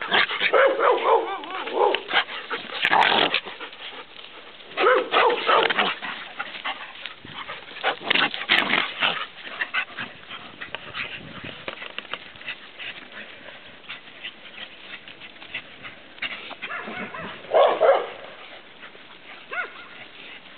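Dogs and puppies at play, barking and yipping in several short bouts with quieter stretches between.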